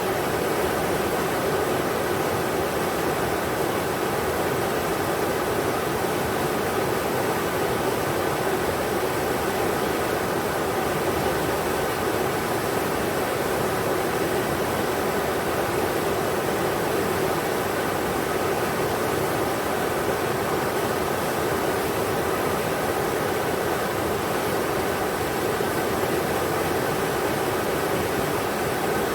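Steady rushing of a river's water, an even wash with no breaks.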